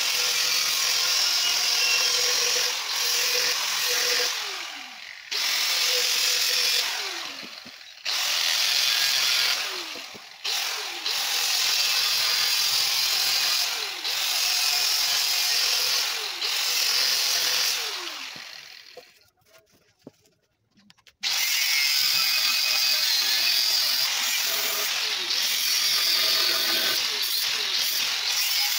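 Angle grinder cutting through the steel wall of an old CNG gas cylinder: loud, harsh grinding in stretches of a few seconds, the motor's pitch falling each time the cut is eased off. About two-thirds of the way through it stops for about two seconds, then grinds steadily again.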